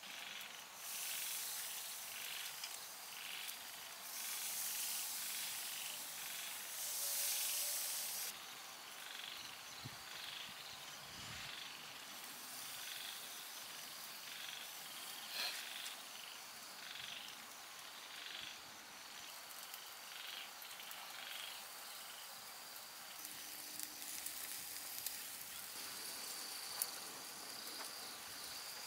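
Outdoor night ambience: an animal call repeating about once a second, over a hiss that comes from the skewers sizzling on the charcoal grill. The hiss is louder for the first eight seconds, then drops off abruptly.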